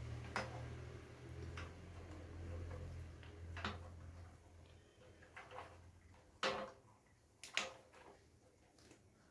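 Scattered clicks and light knocks of small hard parts being handled, likely water heater parts being taken apart or fitted, with two louder knocks near the end. A low hum fades out about halfway through.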